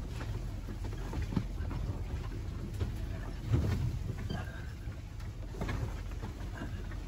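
Land Rover 4x4 driving over a rough dirt forest track: a steady low engine and road rumble with scattered knocks and rattles as the vehicle jolts, the loudest knock about halfway through.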